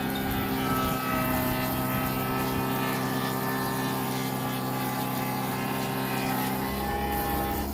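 Electric workshop machine motor running steadily with a droning whine; a deeper hum joins near the end.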